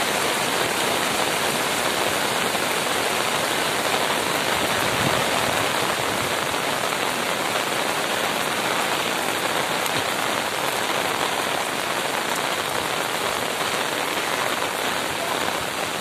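Steady rush of muddy floodwater pouring over a submerged road and culvert, mixed with heavy rain.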